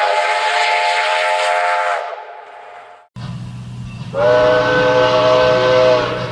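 Two long blasts on a multi-chime train whistle, each a chord of several tones held steady. The first fades out about two seconds in. After a short silence a low steady rumble begins, and the second blast sounds over it from about four seconds in.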